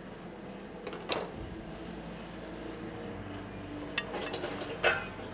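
Kitchen utensils knocking on a work surface: three short, sharp knocks, about a second in, at four seconds and a louder one near the end, over a low steady hum.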